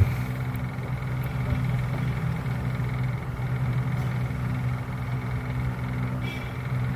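Steady low mechanical hum with a faint high steady tone above it.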